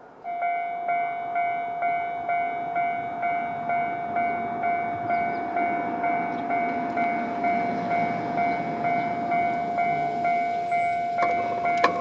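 Japanese railway level-crossing warning bell, the standard Tobu-type electronic bell, starting up and ringing a steady repeating ding about twice a second. Near the end, sharp clicks join it as the electric crossing barriers begin to lower.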